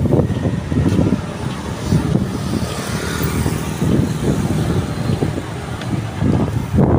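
Road traffic on a city street: cars and motorbikes passing, a steady low rumble of engines and tyres.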